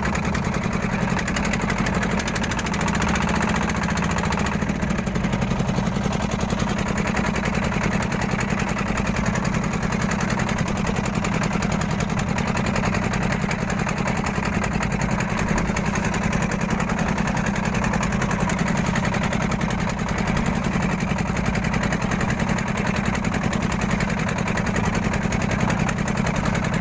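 A small engine running steadily at an even speed, with a fast regular chugging beat.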